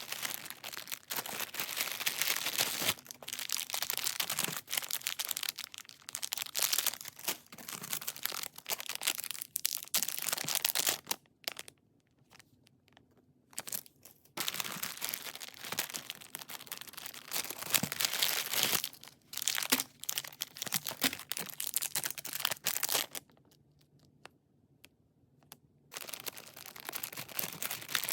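Packaging crinkling and tearing as it is unwrapped by hand, in three stretches with two short pauses.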